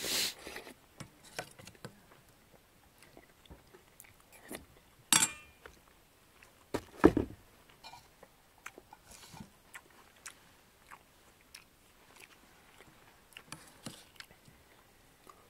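Quiet, scattered clicks, light rustles and knocks of small things being handled close by, with two louder knocks about five and seven seconds in.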